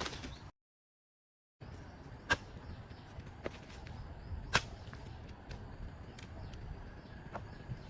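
A few sharp clicks or knocks over a steady outdoor background, the two loudest about two seconds apart. The sound cuts out completely for about a second near the start.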